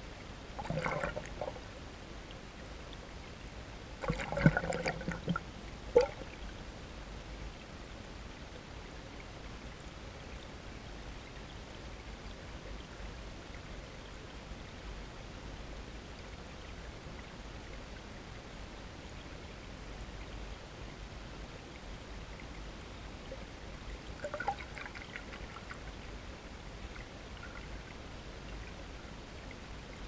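Stream water heard through an underwater camera beneath the ice: a steady faint rush of flowing water, with brief louder trickling bursts about a second in, around four to five seconds in, and again about twenty-five seconds in, and two sharp knocks near four and a half and six seconds.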